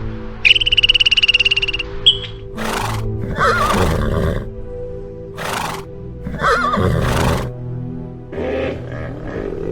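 A horse whinnying twice, each time a breathy burst followed by a wavering, quavering call, over steady background music. A fast, high trill of rapid pulses comes just before, in the first two seconds.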